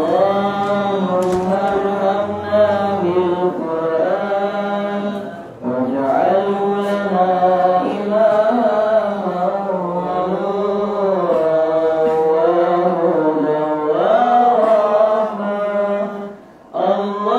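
A single man's voice chanting a melodic religious chant in long, drawn-out, wavering phrases, breaking off briefly twice.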